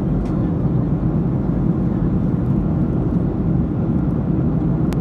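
Steady low roar of a jet airliner in flight, engines and rushing air heard from inside the passenger cabin. A single faint click just before the end.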